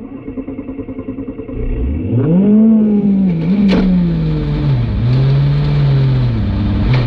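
A car engine is cranked for about a second and a half, catches and revs up sharply. It then runs at high revs that fall back and rise again several times, with a single sharp click a little after halfway.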